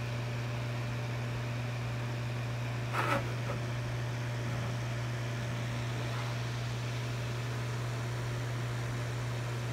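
Small electric desk fan running with a steady low hum and airy whir. About three seconds in, a brief louder sound rises over it.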